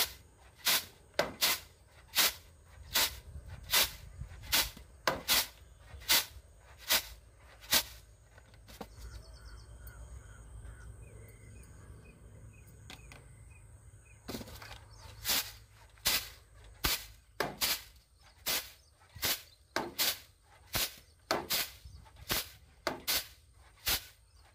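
Rice being winnowed in a flat winnowing tray: sharp, regular strokes as the grain is tossed and caught, a little more than one a second. The strokes pause for several seconds partway through, then start again.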